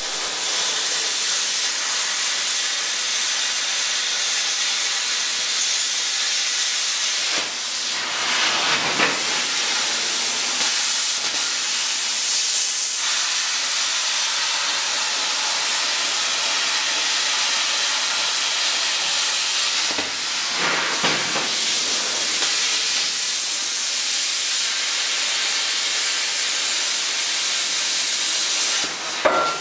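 Air plasma cutter arc hissing steadily as the torch cuts through steel, dipping briefly a few times.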